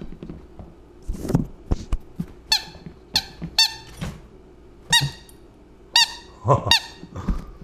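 Plush squeaky dog toy squeaking in short, sharp squeaks, about six of them over the last five seconds, each rising and falling in pitch. A couple of dull knocks come about a second in.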